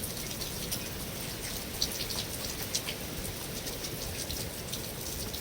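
Steady rain on a metal roof: an even hiss with a constant scatter of small, sharp drop taps.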